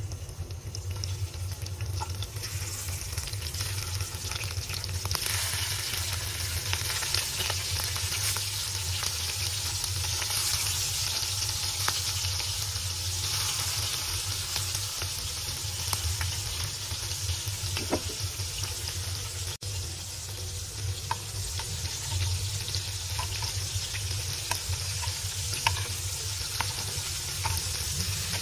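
Prawns frying in hot oil in a nonstick pan: a steady sizzle with scattered small pops, growing louder about five seconds in, and a spatula stirring them near the end.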